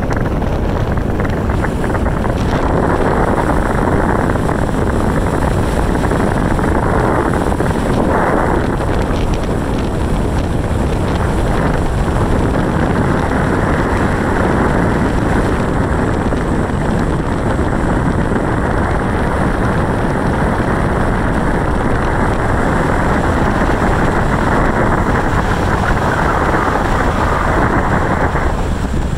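Steady rush of wind and road noise from a moving car, heard from inside the car, with no change in pitch or loudness.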